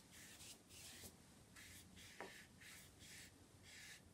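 Watercolour brush stroking back and forth across watercolour paper, faint, about two strokes a second, as a wash of colour is worked into the paper.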